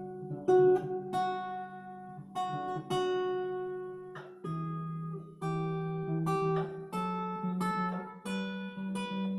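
Epiphone Lil Tex travel acoustic-electric guitar being played: picked chord notes ringing out one after another over sustained bass notes.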